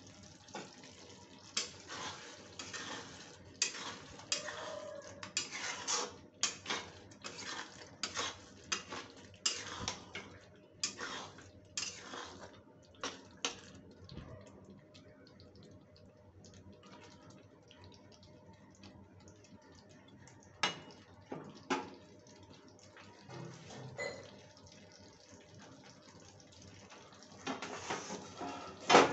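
A steel ladle stirring a thick okra curry in a metal kadhai: a run of repeated scrapes and clinks against the pan for about the first half, then quieter with only a few separate knocks. A louder metal clank comes at the very end.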